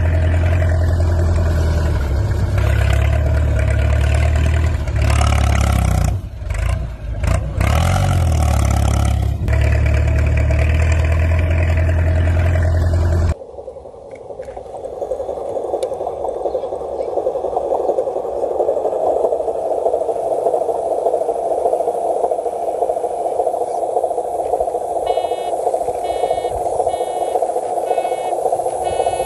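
RC tractor's simulated engine sound running steadily with a low hum, dipping briefly about six seconds in. Then a radio-controlled dump truck's electric motor and gears whine as it drives, growing louder, with a series of short beeps near the end.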